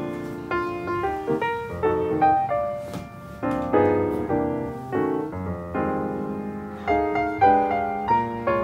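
Background piano music: a melody of separate struck notes, each sounding sharply and then fading.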